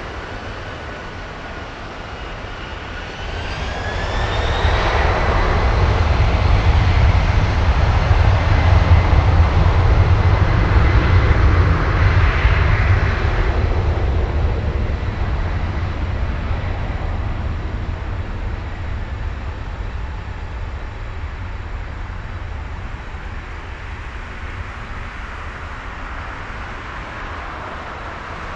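Boeing 767-300's two General Electric CF6-80C2 turbofans spooling up to takeoff thrust: a whine that glides up in pitch over the first few seconds and settles into a steady tone over a deep rumble. The roar swells to its loudest within seconds, then slowly fades as the airliner rolls away down the runway on its takeoff roll.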